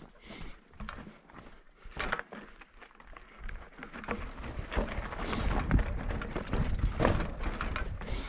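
Mountain bike rattling down a rocky mountain path, its tyres and frame knocking over stones in a run of irregular clatters. A low rumble builds and grows louder through the second half.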